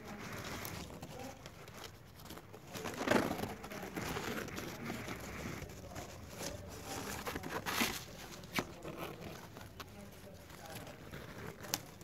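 Irregular rustling and crackling, with a few sharp clicks: the loudest about three seconds in, others near eight seconds and near the end.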